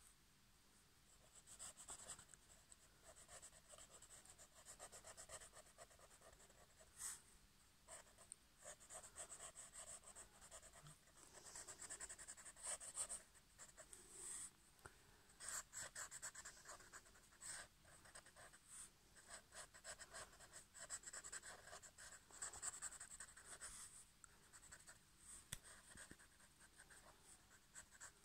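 Black ink pen scratching on paper in faint, quick scribbling and hatching strokes that come in irregular flurries with short pauses between.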